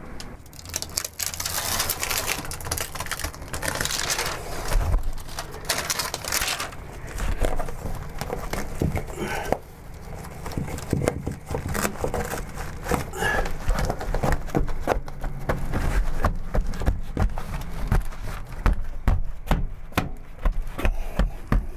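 Close handling noise of a fabric-covered Hypervent mattress vent mat being stuck down: rustling and crinkling as the carpet tape's backing paper is peeled off and the mat is smoothed flat. Irregular knocks and scrapes as hands and knees press it onto the plywood bed base.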